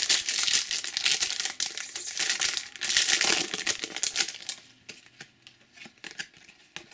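Foil Match Attax trading-card packet crinkling as it is torn open, a dense crackle for about four seconds, then only faint ticks and rustles as it settles.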